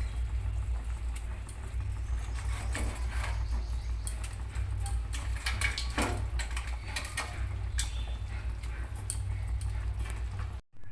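Fish pieces going into a boiling curry in a pan, with scattered clinks and knocks of a utensil against the pan over a steady low hum.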